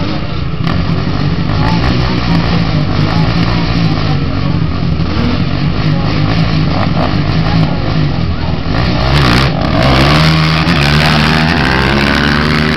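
Dirt bike and quad engines running and revving at the start line, then both accelerating hard away about nine seconds in, the engine pitch rising near the end.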